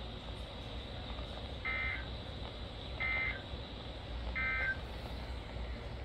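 Three short electronic data bursts, about a second apart, from a RadioShack NOAA weather radio's speaker: the SAME end-of-message code that closes an Emergency Alert System alert. Steady radio static runs underneath.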